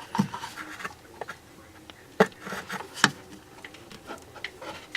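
Pliers clicking and knocking against a distributor rotor that is rusted onto its shaft as it is gripped and worked, with two sharper clicks a couple of seconds in and lighter taps between.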